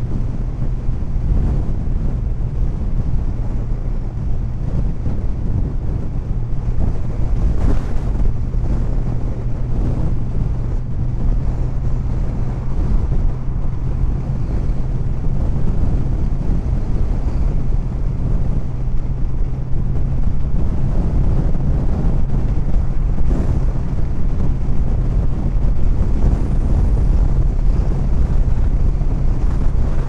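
Wind buffeting the microphone over the steady running of a 2014 Honda Valkyrie's flat-six engine cruising at highway speed, a dense low rumble with an even engine drone underneath.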